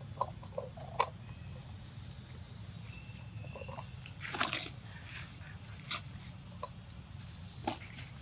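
A few sharp clicks and a short rustle about four seconds in, over a steady low background hum.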